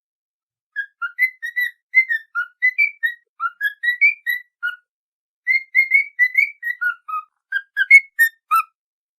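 A whistled tune of short quick notes rising and falling in pitch, with a brief pause about halfway through.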